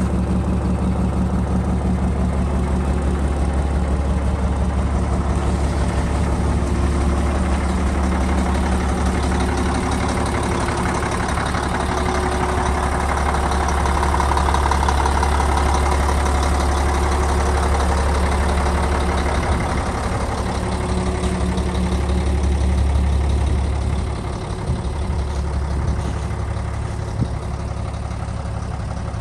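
The diesel engine of a Volvo A30D articulated dump truck idling steadily. It drops a little in level near the end, where a couple of short knocks are heard.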